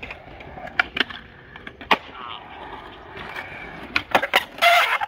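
Skateboard wheels rolling on concrete, with sharp clacks of the board's tail and wheels striking the ground. Near the end comes a quick run of clacks as a flip trick is popped and landed, followed by a brief loud burst.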